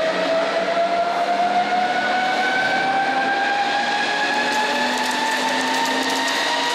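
Hessapp VDM 1000 vertical turning center machining a steel railway wheel under coolant: a steady rush of machine and coolant noise with a whine that rises slowly in pitch. A scatter of small ticks joins in during the last couple of seconds.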